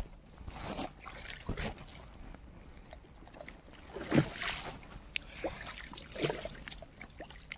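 A wet cloth being washed by hand in pond water: swished, lifted and dropped, with irregular splashing and dripping and one louder splash about four seconds in.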